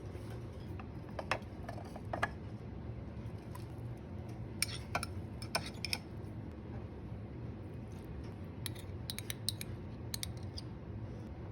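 Light clicks and taps of kitchen utensils at irregular intervals, some in quick clusters, over a steady low hum.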